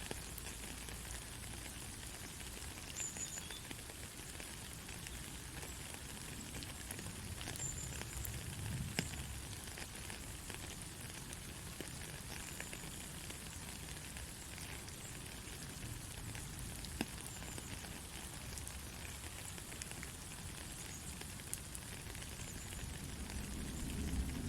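Soft, steady rain, many small drops pattering in an even hiss. A low rumble swells briefly about eight seconds in and again near the end.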